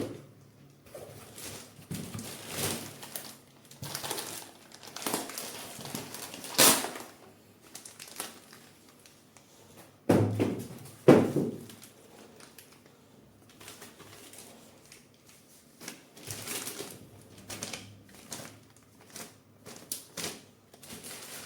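Packaging crinkling and rustling in irregular bursts as parts are unpacked and handled, with two louder knocks about ten and eleven seconds in.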